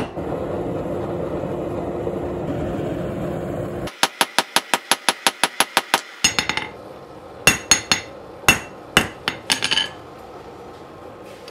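A steady rushing noise with a low hum for about four seconds, then a blacksmith's hammer striking hot mild steel on an anvil: a fast run of about a dozen light blows, then several separate ringing strikes, as a tong half is forged.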